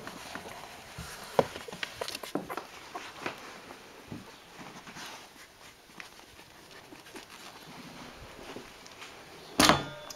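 Soft rustling and scattered small clicks as a hand strokes newborn puppies on a towel, busier in the first few seconds, with one loud sharp sound near the end.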